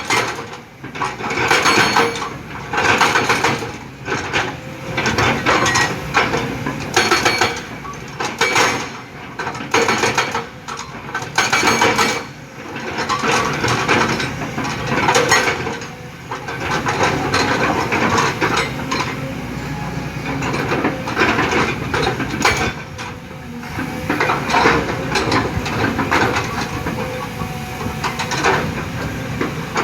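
Kobelco hydraulic excavator working in stone: irregular metallic clanks and rock clatter, at times in quick runs, over the steady running of the engine.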